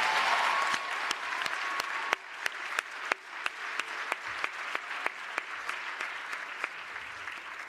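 Audience applauding: a full round of clapping that thins within the first couple of seconds into scattered single claps, about three a second, fading toward the end.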